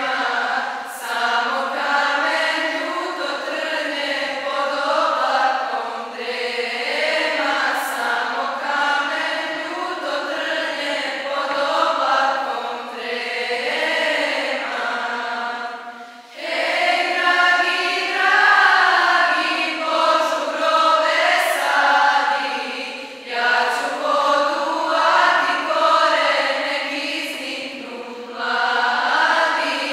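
A choir singing a slow religious song, with a short break for breath about sixteen seconds in before the voices come back in.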